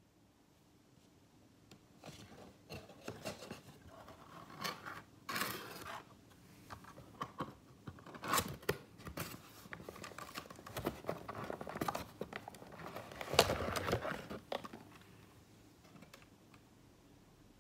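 Cardboard box and paper packaging being opened and handled: irregular rustling, scraping and tearing, with the loudest scrape coming late on.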